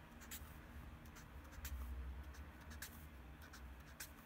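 Felt-tip dry-erase marker drawn across notebook paper in a series of short, faint scratchy strokes, several spaced a fraction of a second apart, over a low steady hum.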